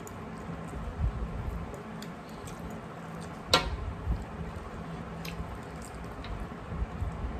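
Hand-eating sounds at brass plates: soft squishing as fingers knead rice and curry, chewing, and light contacts of fingers on the metal plates. There is a sharp tap about halfway through.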